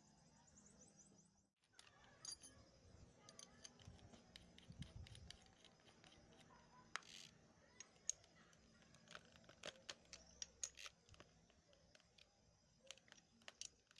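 Faint metallic clicks and rattles of a spade drill bit being fitted into an electric drill's keyed chuck and the chuck sleeve turned by hand, scattered irregularly, with a few sharper clicks.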